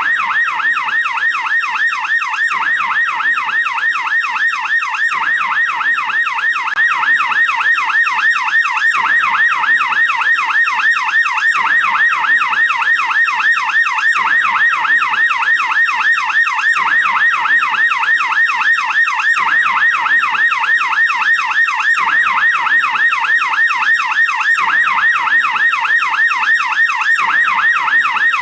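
American police car yelp siren sounding continuously: a fast warble sweeping up and down in pitch about two to three times a second.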